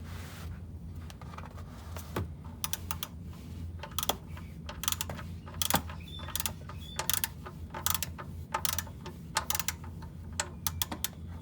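Ratcheting torque wrench clicking in short irregular runs as the oil pan drain bolt is driven in and tightened to 25 ft-lb.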